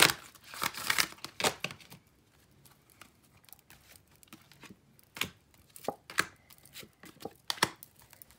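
A deck of oracle cards shuffled by hand, a dense crackling riffle in the first two seconds. Then several short sharp taps as cards are drawn and laid down on the table.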